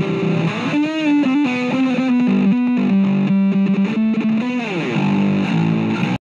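Electric bass guitar played solo, a run of notes in its upper register with pitch bends and a long slide down about five seconds in, stopping abruptly just before the end.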